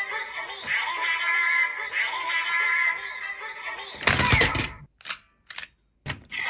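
Electronic sound effects from a DX Kamen Rider Gavv transformation toy during a weapon link-up, playing through its small speaker. A synthesized sung jingle runs for about four seconds, then cuts to a loud burst, followed by a few short, sharp sounds.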